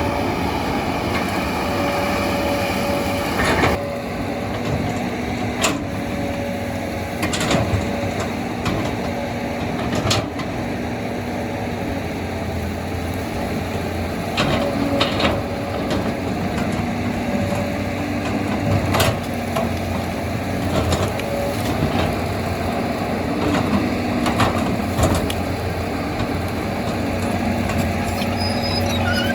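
Heavy machinery engine running steadily, with sharp metallic knocks and clanks every few seconds.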